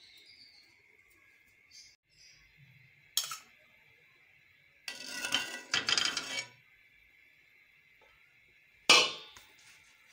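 Metal cookware and utensils clinking on an iron tawa as it is oiled: a single clink, a rattling stretch of several knocks a few seconds later, then a sharp metallic clank near the end that rings briefly.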